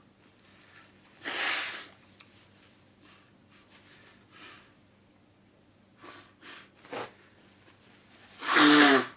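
A person breathing sharply and sniffing through the nose, then one loud sneeze with a short falling voiced cry near the end.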